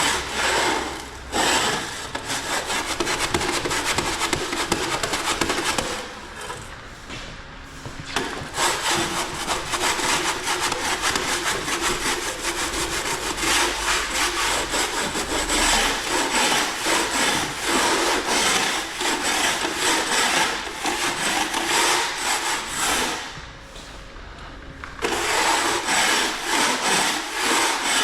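Rapid, rhythmic scraping strokes of a hand tool, pausing briefly twice.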